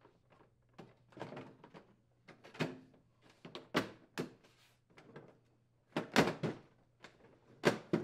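Inner and outer panels of a Whirlpool over-the-range microwave door being pressed together, a run of sharp snaps and knocks as the tabs click into place around the edges, loudest a little after six seconds in.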